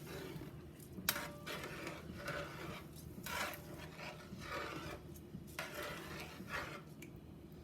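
A spoon stirring rice in a cooking pot, scraping and rubbing against the pot in a series of strokes, with a sharp knock about a second in.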